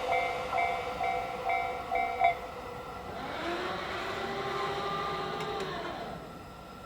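Japanese level-crossing warning bell ringing in even two-tone pulses about twice a second, stopping about two seconds in as the crossing clears after the train. It is followed by a steady whine that rises briefly in pitch and holds for about three seconds before fading.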